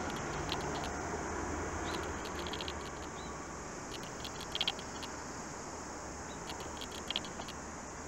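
Camera lens mechanism ticking in short bursts of rapid clicks, about four bursts, over a steady hiss.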